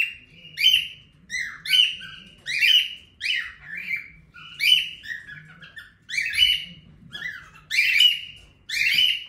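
Pet lovebirds and a cockatiel screaming, a rapid string of harsh, high-pitched shrieks repeating about every second, really loud.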